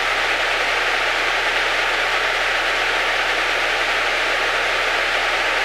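Steady static hiss on the aircraft's intercom and radio audio, with a faint steady high tone behind it. The hiss is a fault in the radio audio that the crew suspect comes from a headset jack.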